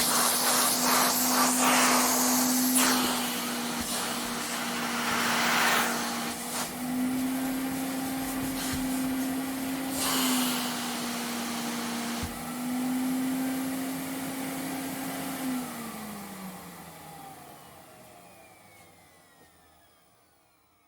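Vacuum cleaner running, its motor note shifting slightly in pitch as the suction changes, with bursts of rushing air during the first six seconds and again around ten seconds in. About fifteen seconds in it is switched off and the motor winds down, its pitch falling as it fades away.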